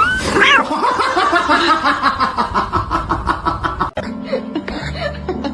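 Rapid, rhythmic laughter, about five pulses a second, that cuts off abruptly about four seconds in; after it comes a steady low hum.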